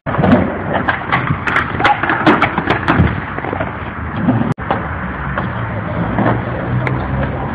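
Skateboard wheels rolling over concrete with repeated sharp clacks and knocks of the board in the first half. After a brief gap just past halfway, a low steady rumble takes over, with a few scattered clicks.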